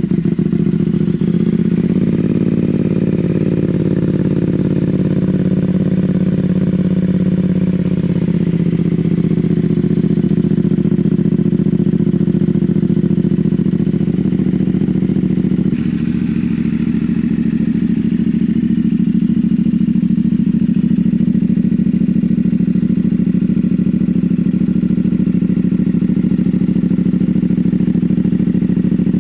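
CFMoto 450 parallel-twin motorcycle idling steadily through a newly fitted aftermarket exhaust in place of the stock one. The idle note shifts slightly a few times.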